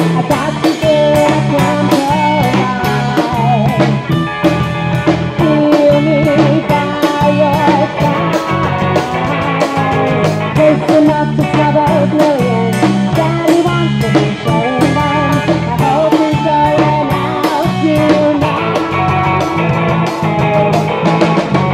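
Live rock band playing: electric guitar, bass guitar and drums with a steady beat, and a woman singing into a microphone over them.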